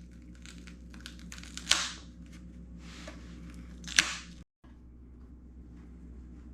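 Plastic rail guards being pulled off a Onewheel GT's rails: scattered small clicks and handling noise, with two louder sharp snaps a couple of seconds apart.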